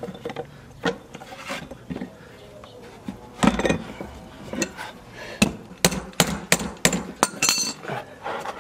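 Metal clinks and knocks of a wrench and longboard truck parts as a wheel is worked off and on the axle: a run of sharp clicks, thickest in the second half. The wheel's bearings are rusty, so the wheel is being knocked loose.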